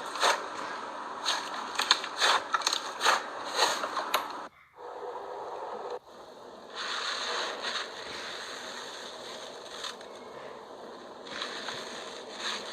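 Slime being worked by hand: a quick run of sharp crackling pops for the first four seconds or so, then, after a short break, a steadier scraping, rustling sound that comes and goes.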